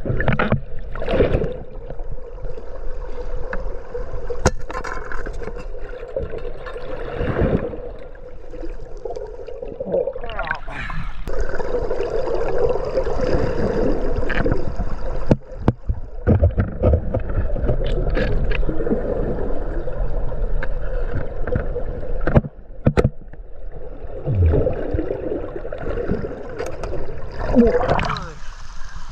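River water rushing and gurgling, heard underwater during a spearfishing dive, with a steady low hum and a few sharp knocks.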